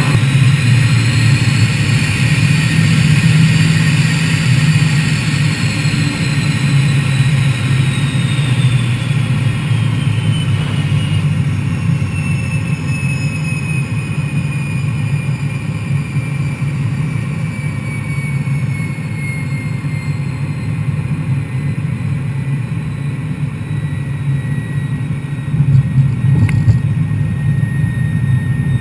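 Jet engine noise heard from inside the cockpit during the approach and landing: a steady low rumble with a high whine that slowly falls in pitch as the engine is throttled back. The noise gets louder and rougher near the end as the jet comes down onto the runway.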